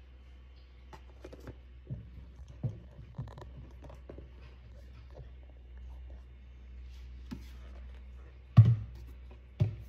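Kitchen handling noises: scattered small knocks and taps of containers and utensils over a low steady hum, with two louder thumps near the end, about a second apart.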